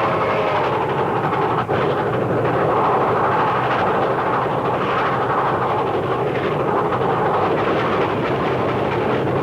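Train running along the track: a steady rumble with a brief dip about one and a half seconds in.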